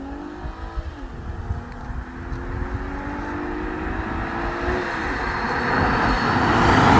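A car accelerating hard from a standing start toward and past the listener, its engine note climbing through the gears with upshifts about a second in and about five seconds in, then a swelling rush of engine, tyre and wind noise as it passes close near the end.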